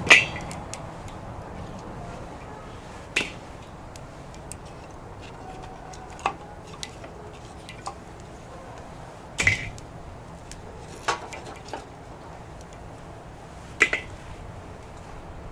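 Wood campfire crackling: irregular sharp pops and snaps from the burning wood, a few of them loud, over a low steady background.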